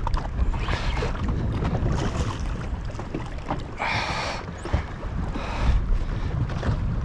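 Wind buffeting the microphone on a small open boat, a steady low rumble, with scattered knocks and a short scraping rush about four seconds in.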